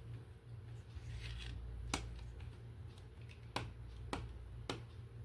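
Hands handling a plastic toy: a brief rustle, then a sharp click, then three more clicks about half a second apart, over a steady low hum.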